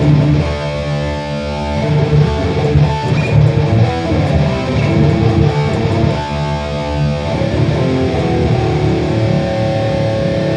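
Electric guitar played through a Boss Katana Gen 3 212 combo amp with its orange Contour 3 setting engaged, which pushes the upper mids for a more focused lead tone.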